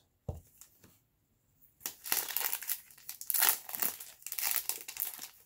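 Foil wrapper of a 2020 Bowman baseball card pack being torn open and crinkled. The crinkling starts about two seconds in, after a nearly silent start.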